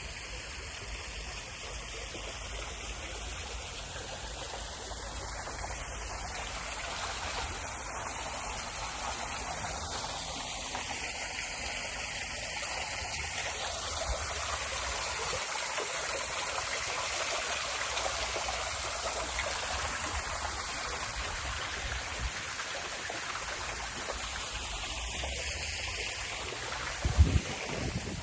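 Steady rush of running water, like a flowing stream, with a short low bump about a second before the end.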